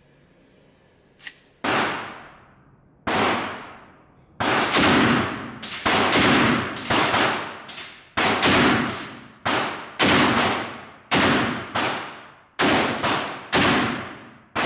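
Kalashnikov USA KOMRAD 12-gauge semi-automatic firing a string of shots from its drum magazine, the first about two seconds in and then roughly one a second, quickening near the end. Each loud shot is followed by a long echo of the indoor range.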